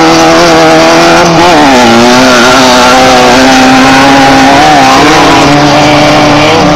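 Class 1600 desert race buggy's air-cooled VW flat-four engine running hard and very loud. Its pitch drops about a second and a half in, then holds steady.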